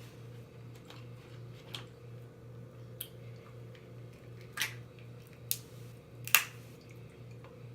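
Wet mouth sounds of eating: a handful of short, sharp smacks and squelches, the loudest about six seconds in, over a steady low hum.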